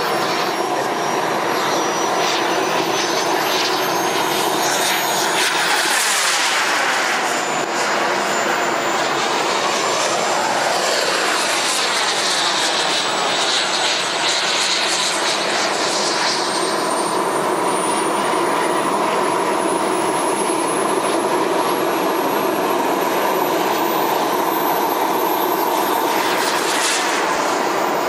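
Jets Munt Merlin M90 turbine of a 1/7-scale TNT Models F-16 model jet in flight: a steady jet rush with a high turbine whine that slowly climbs in pitch. It grows louder about six seconds in and again near the end.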